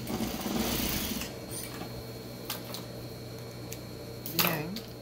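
Industrial single-needle lockstitch sewing machine running as it stitches a polo shirt's side seam, stopping about a second in. A few light clicks follow as scissors snip the thread, and there is a short, louder noise near the end.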